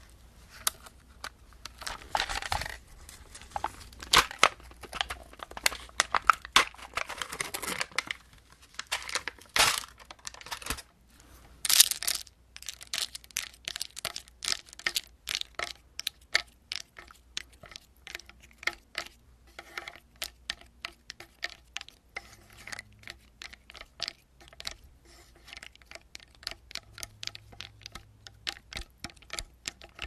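Pink plastic spoon scratching and tapping against a thin white plastic tub. There are dense, scratchy strokes for roughly the first twelve seconds, the loudest a little before the middle, then a steady run of quick light taps, several a second.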